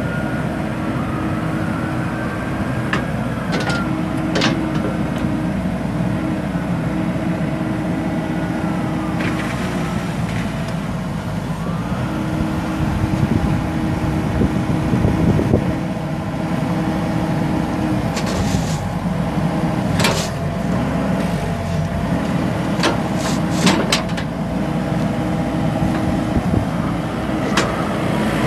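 Komatsu PC78MR-6 compact excavator's 3.26 L four-cylinder turbo diesel running steadily under hydraulic load as the boom, stick and bucket are worked, with a whine that glides up and down in pitch. Several sharp metal clanks come through, a pair a few seconds in and a cluster about two-thirds of the way through.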